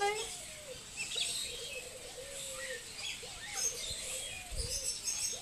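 Birds chirping: scattered short, high chirps over a low, wavering warble that comes and goes.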